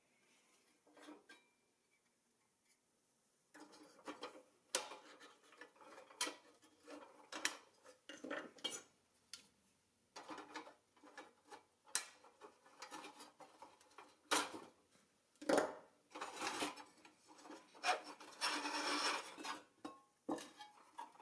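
Rusty pressed-steel toy parts being worked apart by hand and with needle-nose pliers: metal clinks, clicks and rubbing scrapes as pins and arms are pried loose. It is quiet for the first few seconds, then clicks come often, with a longer scrape near the end.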